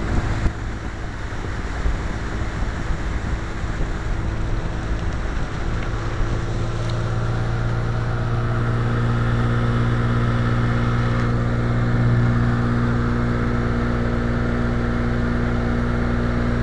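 A 43-year-old Evinrude outboard motor running steadily at speed, its note strengthening and growing slightly louder about six seconds in, with water rushing past the hull and wind on the microphone.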